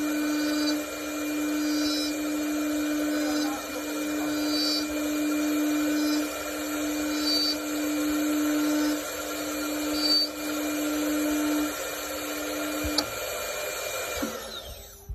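CNC wood turning lathe running, its motors whining steadily while the cutting noise swells and eases about every second and a half. Near the end the motors wind down and the whine falls in pitch.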